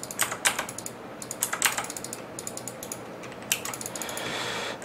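Computer keyboard keys and mouse buttons clicking irregularly. About three and a half seconds in comes a denser run of rapid clicks, like a mouse wheel being scrolled to zoom the drawing.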